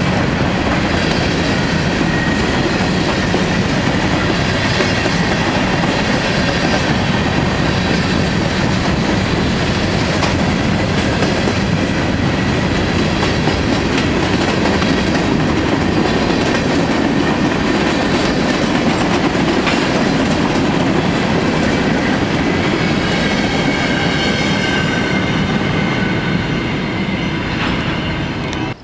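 Freight cars of a CSX local train, covered hoppers and boxcars, rolling steadily past at close range, their wheels running over the rails with a faint high wheel squeal at times. The noise eases near the end as the last car goes by, then cuts off sharply.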